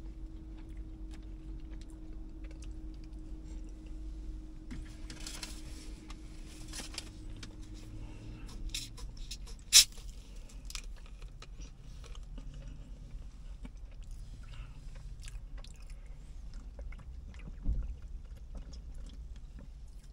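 Chewing on a sandwich, with small clicks and a brief rustle over a low steady hum. About halfway through, a plastic soda bottle's cap is twisted open with one sharp, loud snap. There is a dull thump near the end.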